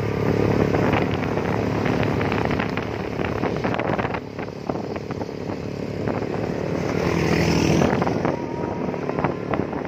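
Several small motorcycles and scooters running together at cruising speed, heard from one of the bikes in the group. The engines grow louder about seven seconds in.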